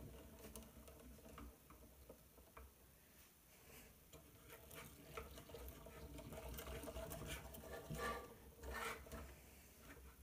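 Faint clicking and rattling of a LEGO Technic bicycle model's plastic drivetrain as its pedal crank is turned by hand and the rear wheel spins, a little busier in the second half.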